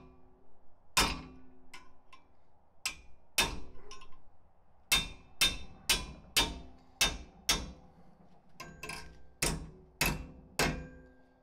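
Hammer blows on a steel catch-can mounting bracket clamped in a bench vise, bending it over. About a dozen sharp metallic strikes, each ringing briefly, coming faster (about two a second) from around the middle on.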